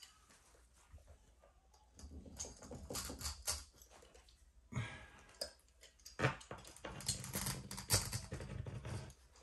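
Hand work on a carpet edge at the baseboard, with carpet and hand tools scraping, rustling and tapping as the carpet is tucked and trimmed. The sounds are irregular, with a few sharper knocks in the second half.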